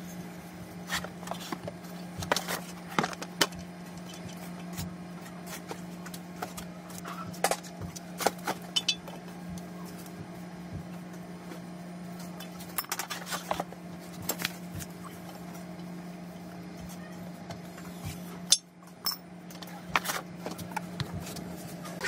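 Toilet seat being fitted to a ceramic toilet bowl by hand: scattered clicks and knocks of the plastic seat and hinge parts against the porcelain, with one sharper knock late on. A steady low hum runs underneath.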